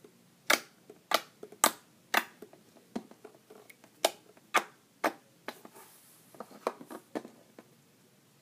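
Clear slime handled with the fingers, making about a dozen sharp clicking pops, roughly two a second, with a short pause midway.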